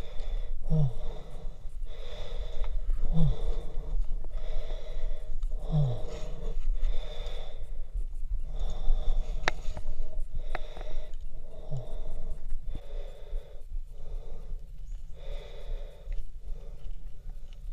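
Heavy, quick breathing of a climber close to the microphone, about one breath a second, from the effort of scrambling up steep rock. A few short falling grunts of effort come in the first part, and two sharp clicks come about ten seconds in.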